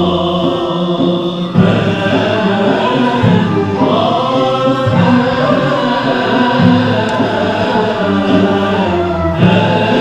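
Turkish Sufi music ensemble singing in chorus for the Mevlevi sema (whirling ceremony): a group of voices holding long, overlapping chanted notes, with a new phrase coming in about one and a half seconds in.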